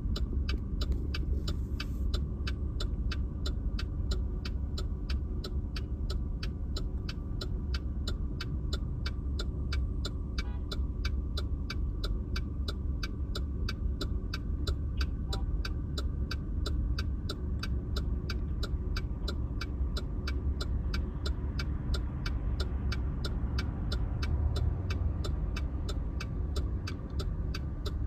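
Steady low rumble inside a moving car's cabin, with an even, sharp ticking about three times a second throughout.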